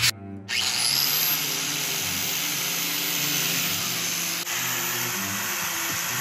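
Angle grinder spinning up with a quickly rising whine about half a second in, then grinding steadily on the steel head of a sledgehammer, throwing sparks, to prepare it for welding.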